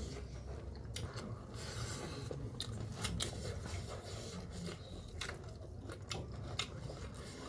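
Person eating close to the microphone: faint chewing with scattered small clicks and crackles of food being bitten and broken.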